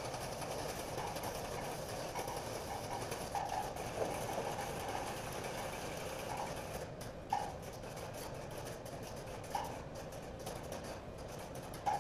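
Floating spacecraft simulators on compressed-air bearings hissing steadily, with several short puffs of their cold-gas thrusters firing as the chaser closes on and docks with the target.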